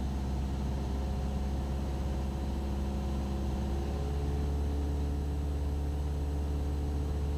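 Cessna 172SP's four-cylinder Lycoming engine and propeller droning steadily inside the cabin in flight, its tones shifting in pitch about four seconds in.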